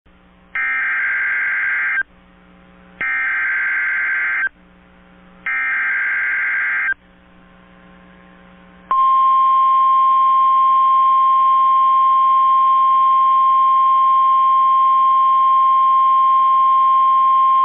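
NOAA Weather Radio Emergency Alert System alert: three short bursts of SAME digital header data, each about a second and a half long and a second apart, then the steady 1050 Hz warning alarm tone held for about nine seconds. Together they announce a National Weather Service severe thunderstorm warning.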